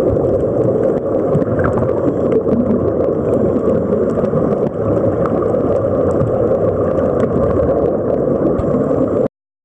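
Underwater sound picked up by a submerged camera: a steady, muffled rumble and gurgle of water and air with a few faint clicks. It cuts off suddenly near the end.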